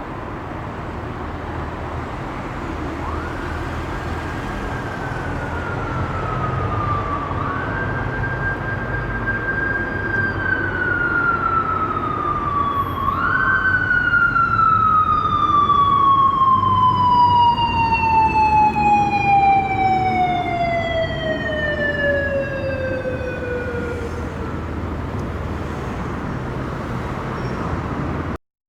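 Japanese police motorcycle siren wailing, ordering a speeding car to pull over: the tone rises to a high note, holds, starts to fall and is pushed back up twice, then winds slowly down in one long fall. Under it, a steady low vehicle and road rumble.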